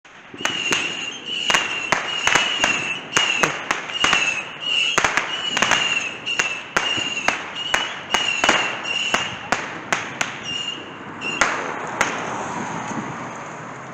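A rapid string of firecracker and firework bangs, about two to three sharp cracks a second, each with a brief high ring, stopping about twelve seconds in and leaving a steady hiss.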